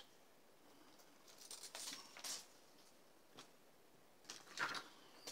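Cut steel electric guitar strings being pulled off the tuning posts and coiled by hand: faint scratchy rustling of wire, in two short bursts about two seconds in and near the end.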